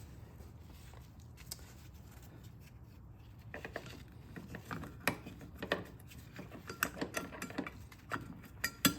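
Light clicks, clinks and taps of metal and plastic lawnmower parts (blade, washer, fan) being handled and fitted onto the motor shaft, coming thick from about three and a half seconds in, over a faint steady low hum.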